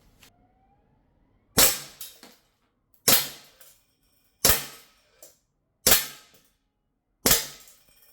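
Sig Sauer 1911 CO2 air pistol fired five times at a steady pace, about one and a half seconds apart, each sharp pop followed by a fainter click.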